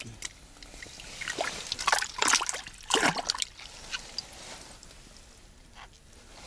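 Water splashing and sloshing in an ice-fishing hole as a hooked fish is pulled out by hand, with a few loud splashes in the first half and then light dripping.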